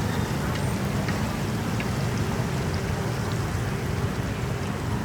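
Busy street-market background noise: a steady low rumble with a few faint clicks.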